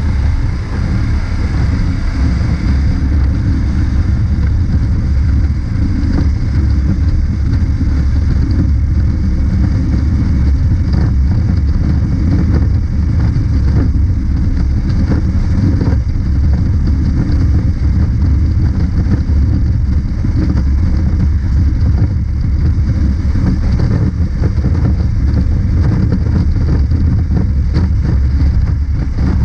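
Honda CB500X parallel-twin motorcycle engine running steadily at highway cruising speed, mixed with a constant low rumble of wind on the microphone.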